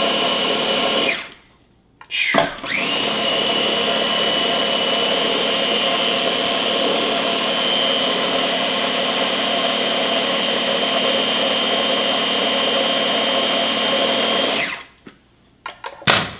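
Small electric mini chopper (mini food processor) running as it purées beet hummus: the motor whine stops about a second in, restarts with a quick rising spin-up and then runs steadily for about twelve seconds before cutting off. A few short knocks follow near the end.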